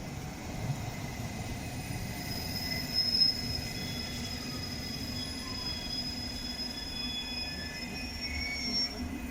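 London Underground train moving through the station, with a low rumble under several thin, high, steady squealing tones from the wheels and running gear that shift slightly near the end.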